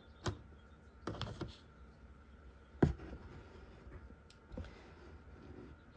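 Light clicks and knocks of eggs being handled and set onto an egg candler, with one sharper knock a little before the middle and a few softer taps later.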